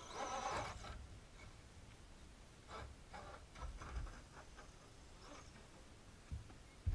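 Radio-controlled truck driving over an obstacle: a faint electric motor whine in the first second, then a few faint bumps, with near silence in between.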